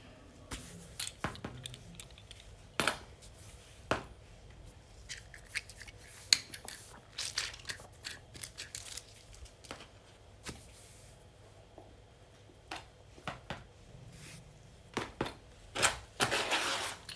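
Irregular clicks, crackles and crinkling of small objects handled close up, with a denser stretch of rustling near the end.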